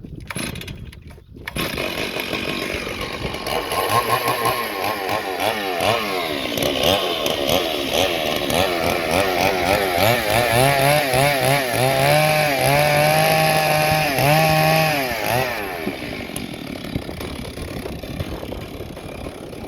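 Stihl MS 382 two-stroke chainsaw cutting wood, its engine pitch wavering and stepping up and down under load. Near the end it drops back to a quieter, steadier running.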